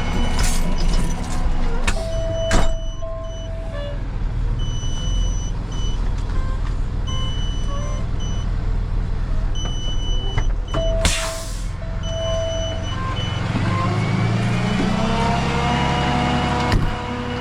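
Truck engine running steadily, with runs of short high-pitched beeps repeating in groups and a couple of brief lower tones. There is a sharp knock a few seconds in and a short hiss about eleven seconds in, and the engine note rises near the end.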